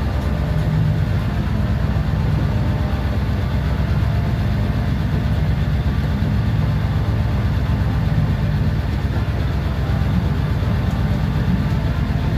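A boat's engine running with a steady low drone, heard from inside the wheelhouse.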